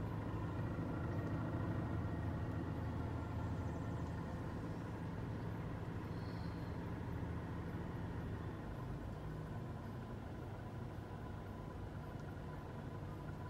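Steady low hum of idling vehicle engines, with a faint steady tone above it.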